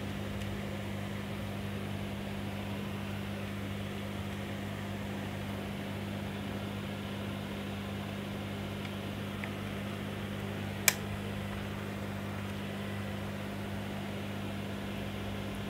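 Steady low hum of running workbench equipment, with one sharp click about eleven seconds in.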